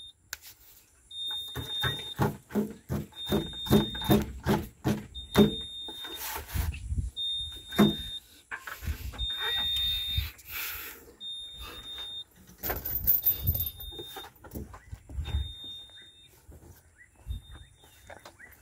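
A high-pitched warning buzzer on a Sonalika 75 HP tractor beeping steadily about once a second, each beep about half a second long, over irregular knocking and rattling as the tractor moves.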